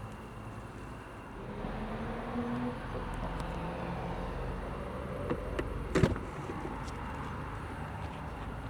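Mercedes-Benz S 450d's inline-six turbo diesel running, the engine note and road noise growing about a second and a half in as the car gets under way. A single sharp thump about six seconds in, with a couple of lighter clicks just before it.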